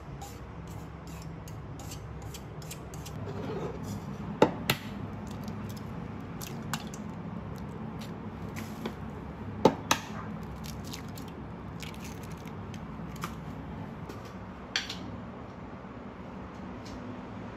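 Objects being handled: scattered sharp clicks and taps over a steady low hum, loudest in two close pairs of clicks about five seconds apart.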